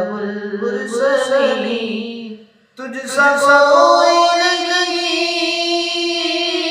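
Male voice singing a naat, holding long, wavering notes. It breaks off briefly about two and a half seconds in, then holds one long sustained note.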